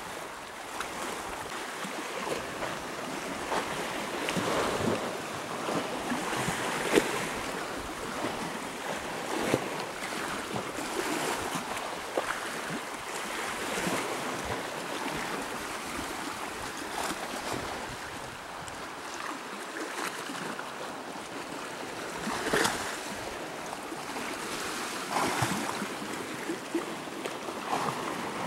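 Seawater washing and splashing at the shoreline, small waves coming in one after another at irregular intervals.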